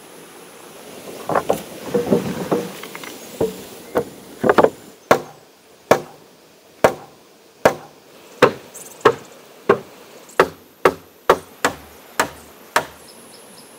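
Axe chopping into wood: a string of sharp strikes, loose and uneven at first, then a steady rhythm of about one and a half blows a second that stops shortly before the end.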